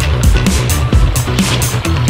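Loud background music with a steady drum beat and deep bass.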